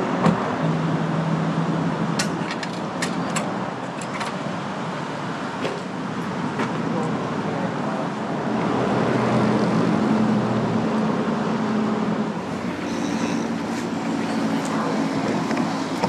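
Motor vehicle and road noise: a steady rush with a low engine hum, and a few sharp clicks and knocks scattered through it.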